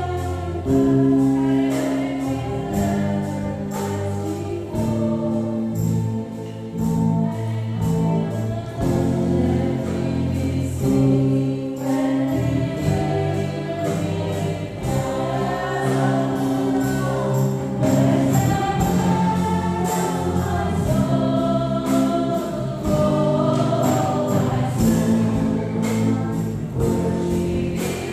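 Live gospel worship song: a lead vocalist singing through a PA, backed by a drum kit, keyboard and guitar, with a steady drum beat and cymbal hits.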